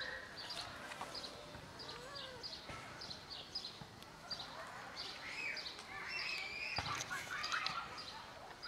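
A small bird chirping over and over, a short high chirp two or three times a second, with a few longer sliding calls about five to seven seconds in.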